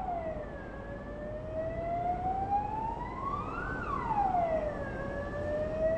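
A siren-like wailing tone over a steady rushing noise. It sweeps slowly up for about three seconds, drops back within about a second, then starts to rise again.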